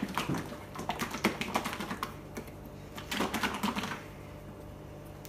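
Plastic shaker bottle of pancake batter being shaken hard by hand: fast rattling knocks in two bouts, the first about two seconds long and the second about a second, stopping about four seconds in.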